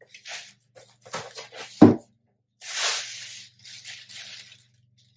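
Tissue paper rustling and crinkling as it is pulled out of a cardboard shipping box and unfolded, with one loud thump about two seconds in.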